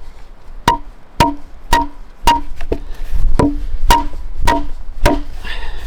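An axe striking wood in a steady series of about nine sharp blows, roughly two a second, each with a short ringing tone, as when chopping notches or knocking a leg piece into a notch.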